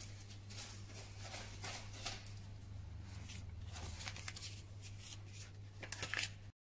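Faint rustling and light scuffing, a string of short soft scrapes like parcels, plastic mailer bags or clothing being handled, over a low steady hum.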